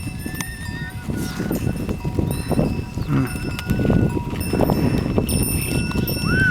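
Yak bells ringing at several different pitches as a yak caravan moves, over a dense low clatter and rumble from the animals.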